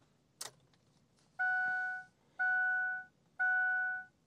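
A 2006 Ford truck's dashboard warning chime sounding with the ignition switched on: a steady pitched tone about half a second long, repeating about once a second, three times, starting after a short click.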